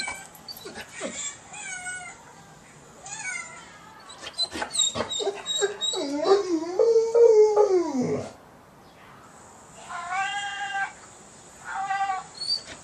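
Recorded cat meows played through a phone speaker from the Cat Lingo app: short meows at intervals, with a longer, louder yowl that falls away about eight seconds in. A dog whines in reaction, and there are scattered light clicks.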